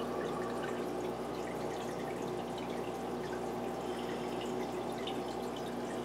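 Aquarium filter running: water trickling and dripping steadily back into the tank, over a low, steady hum.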